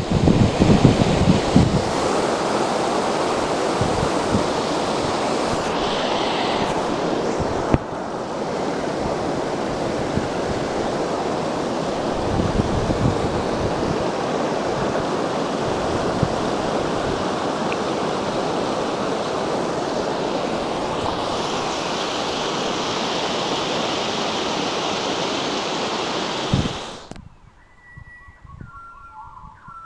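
Steady rush of water spilling over a low rock-ledge waterfall and foaming around the kayak. It cuts off suddenly near the end, leaving quiet with a few birds chirping.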